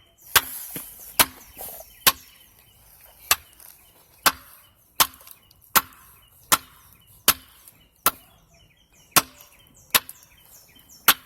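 A hammer chipping at a drain pipe's hub to break it off: about thirteen sharp strikes, steady at roughly one a second.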